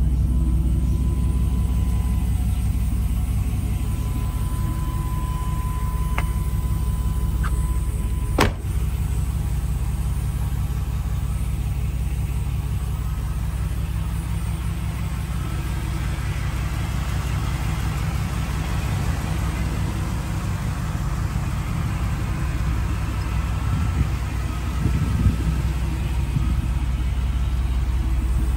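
Engine of a 1996 Chevrolet 1500 pickup with an aftermarket exhaust, idling steadily with a low rumble. A single sharp click comes about eight seconds in.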